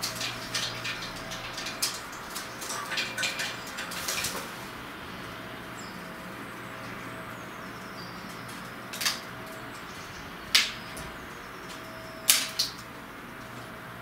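Feral pigeon scrabbling and feeding on a wooden bird feeder: a flurry of clicks and scratches for the first four seconds or so, then a few single sharp taps of its beak against the feeder.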